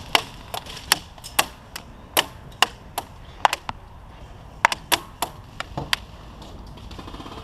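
Airsoft guns firing single shots: a string of sharp cracks at an uneven pace, around three a second, some in quick pairs, stopping about six seconds in.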